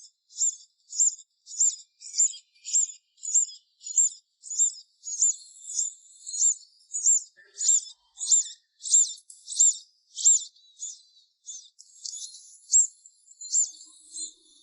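A bird giving a high, thin call over and over, about one and a half calls a second at an even pace.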